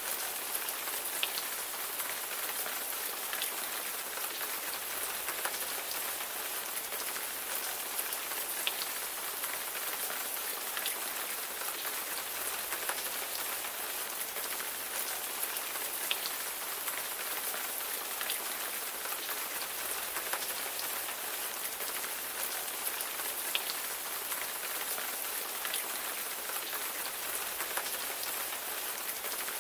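Steady rain falling, a dense even hiss with scattered louder individual drops ticking on a surface.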